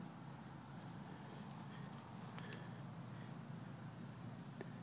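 Insects calling in a steady, unbroken high-pitched drone, with a couple of faint clicks.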